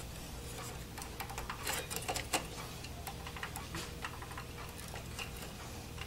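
Faint, scattered light clicks and creaks of a plastic graphics card bracket being pushed and flexed by hand against its latches in a Dell Precision T3500 case, over a low steady hum.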